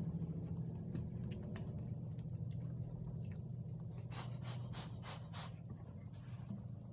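People eating rice-noodle pansit bihon: chewing and slurping, with a quick run of about five short slurps or smacks around four seconds in, over a steady low hum.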